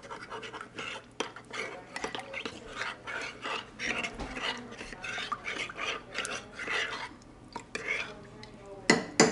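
Metal teaspoon stirring cornstarch into water in a ceramic mug, clinking and scraping against the sides in quick, uneven repeated strokes, with a louder clink near the end. The cornstarch is being dissolved into a slurry for thickening gravy.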